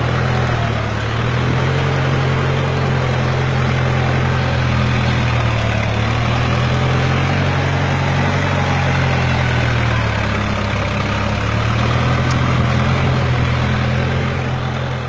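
A Ford farm tractor's engine running steadily under load as it pulls a plow through soil, its pitch sagging briefly about a second in and again about ten seconds in.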